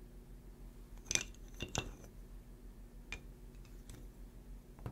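Wooden KEVA planks being set in place and knocking against each other: a few light wooden clicks, the loudest four close together about a second in, then single taps around three and four seconds in and at the very end.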